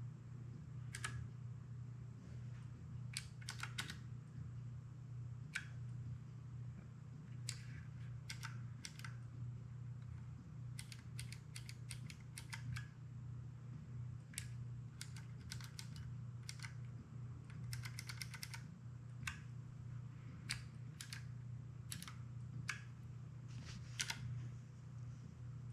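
Keys of a Keychron K3 low-profile mechanical keyboard being pressed, in irregular single clicks and quick runs of several, over a steady low hum.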